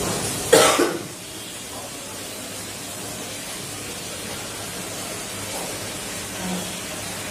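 Steady hiss of room noise during quiet eating by hand from a steel plate, with one short, loud burst of noise about half a second in.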